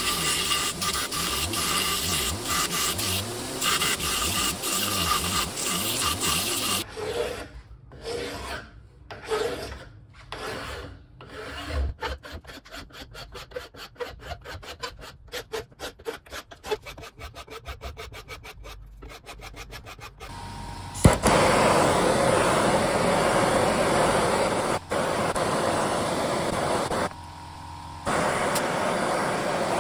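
A belt grinder running with a brass-capped wooden handle end pressed against the belt, then a long file stroked back and forth over the wooden handle in even strokes that get quicker. From about 21 seconds in, a handheld gas torch burns steadily, heating the brass fitting on the handle, with a brief drop about a second long near the end.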